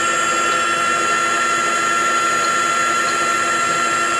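Baileigh DP-1500VS 20-inch variable-speed drill press running steadily with its automatic power downfeed engaged: a steady whine of several tones at once, the clearest a high one.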